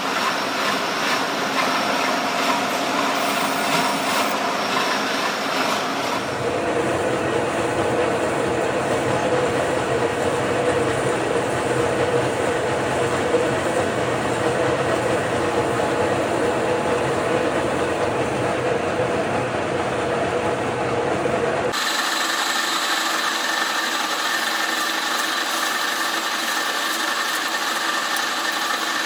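DIP 500 heavy lathe running and cutting metal, a steady machining drone with held tones. The sound shifts abruptly twice as its character and pitch change.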